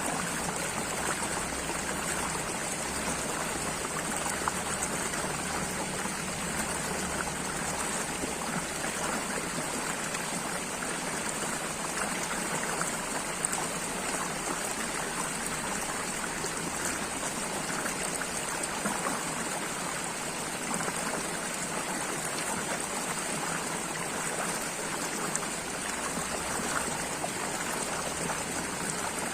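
Steady running water, an even, unbroken flow with no change in level.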